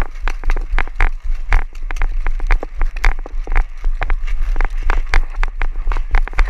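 Paintball markers firing in a match: many sharp, irregular pops, several a second, over a steady low rumble of wind on the camera microphone.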